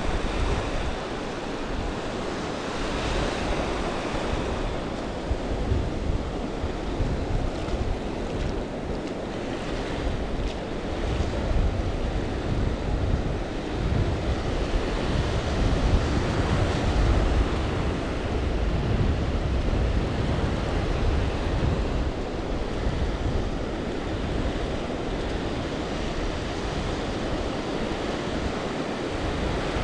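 Shallow surf washing and lapping over a flat sandy beach, with wind buffeting the microphone in uneven gusts.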